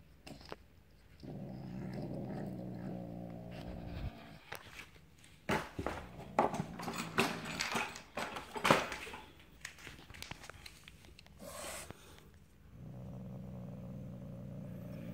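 Asian leopard cat growling: a low, steady warning growl of about three seconds, then a second growl starting about thirteen seconds in. In between, the plastic cover rustles and there are a few sharp knocks and clatter.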